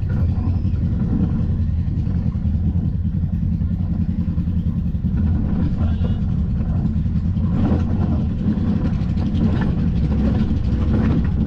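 Side-by-side UTV engine running steadily at low trail speed, with scattered knocks and rattles in the second half.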